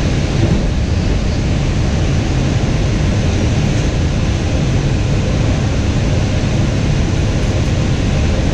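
JFK AirTrain car running along its elevated guideway, heard from inside the car: a steady, loud rolling noise, strongest at the low end, that holds even throughout.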